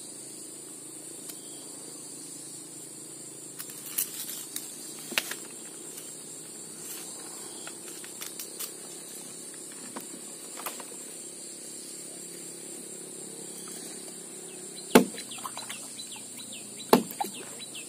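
Sharp whacks, two of them loud near the end, as a large spiny eel is struck to kill it so the hook can be taken out, over a steady high insect drone.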